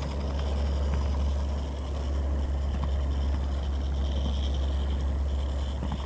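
Impala quad roller skate wheels rolling over rough concrete pavement: a steady low rumble with a few faint ticks. The skater describes the right skate as stiff and noisy, a defect.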